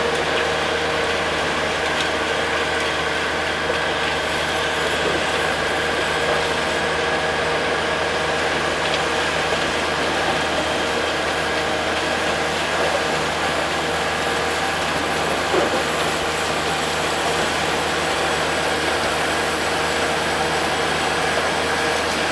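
Bucket wheel excavator running steadily: a constant machine drone with several held tones and an even mechanical noise that does not change in level.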